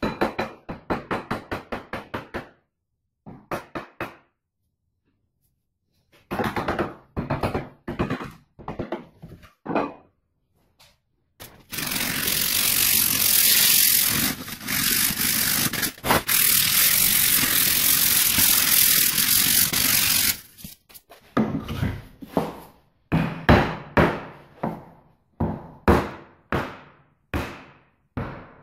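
Hammer blows on a new wooden axe handle as it is driven into the axe head to seat it, in quick runs of sharp knocks. In the middle comes a steady rasping for several seconds as the handle is sanded, then more spaced knocks, about one to two a second.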